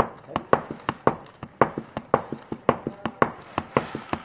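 Hand rubber stamp struck rapidly and repeatedly against an ink pad and a stack of paper slips on a desk, about four to five sharp taps a second in a quick, uneven rhythm.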